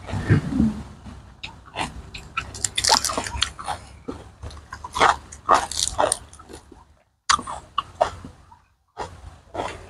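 Close-miked eating sounds: crunchy chewing and smacking mouth noises, mixed with crisp raw lettuce leaves crackling as they are torn by hand. The sound cuts out briefly twice in the second half.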